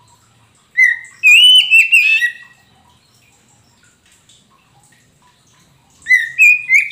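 Oriental magpie-robin (kacer poci) singing: two loud groups of whistled, sliding notes, one about a second in and one near the end.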